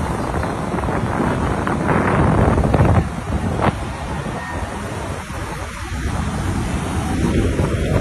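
Busy city street traffic: cars passing close by, with wind buffeting the microphone. The noise swells about two to three seconds in, and there is a single sharp click a little later.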